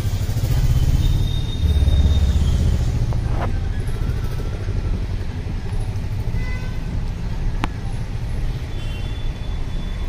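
Low rumble of a motor vehicle's engine, loudest for the first few seconds, over outdoor background noise. A few thin high chirps and one sharp click come later.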